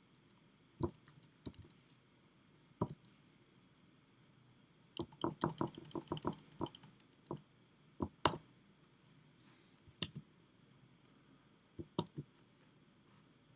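Computer keyboard being typed on in short runs: single keystrokes or clicks here and there, and a quick burst of typing in the middle.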